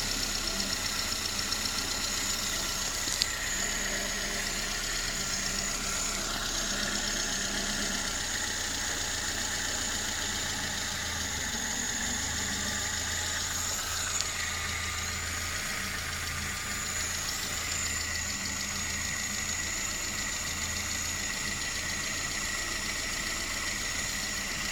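VAZ 21083 engine idling steadily with a knock, which the owner places somewhere in the cylinder head but cannot identify.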